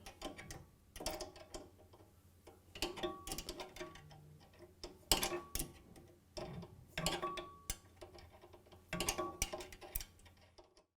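Metal clinks and clicks of tools and sheet-metal belt guards being fitted and fastened down, coming in short clusters with brief ringing, over a faint steady hum.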